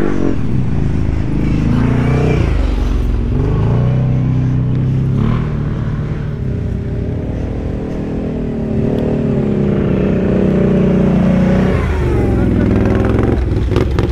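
Quad bike (ATV) engine running hard off-road, its revs rising and falling again and again as the throttle is worked.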